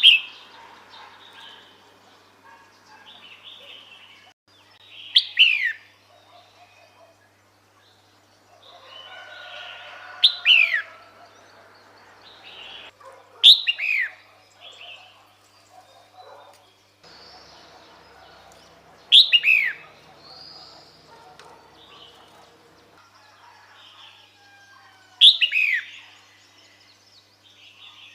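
Female red-whiskered bulbul calling: short, sharp notes that fall steeply in pitch, given five times at uneven gaps of three to six seconds. This is the female's call that draws a male to her.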